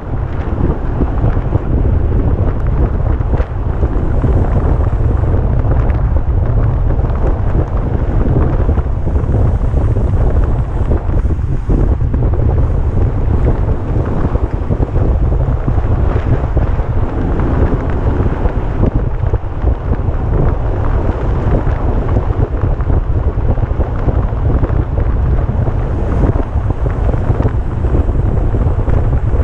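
Wind buffeting a camera microphone carried on a road bike at racing speed: a loud, steady, deep rush with no letup.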